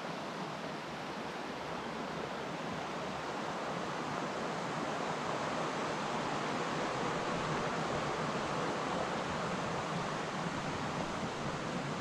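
The Vartry River rushing over rocks in a steady hiss, swelling slightly over the first few seconds.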